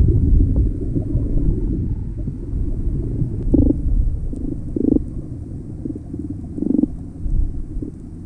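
Muffled underwater sound picked up by a submerged action camera: steady low rumbling of moving water, with a few short gurgling bursts in the middle.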